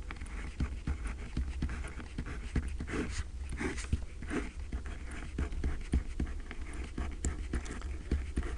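Ballpoint pen writing on paper: a quick, irregular run of short scratchy strokes as letters and brackets are drawn, over a low steady hum.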